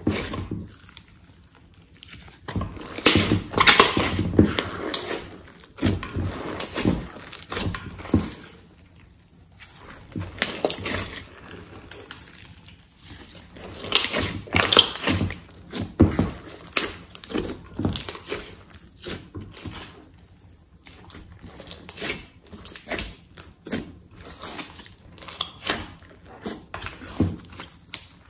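Hands squeezing, folding and stretching a large mass of glossy slime in a glass dish: irregular runs of wet clicks, crackles and air-bubble pops, with short quiet pauses between handfuls.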